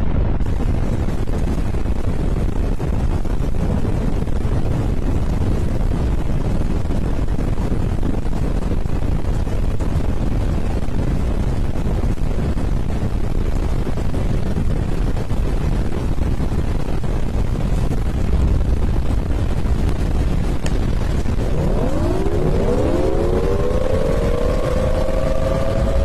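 Storm wind from a waterspout blowing hard over the microphone, a loud, steady, rumbling rush. About 21 seconds in, several rising sweeps glide up and settle into held musical tones.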